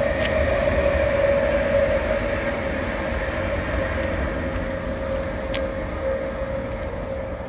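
Class 360 electric multiple unit running past with a steady whine over the rumble of its wheels, slowly fading as it draws away.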